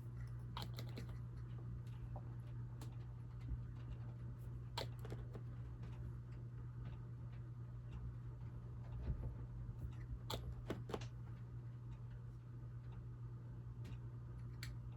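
Scattered light clicks and taps from small objects being handled on a workbench, coming irregularly with a few clustered near the start, in the middle and toward the end, over a steady low hum.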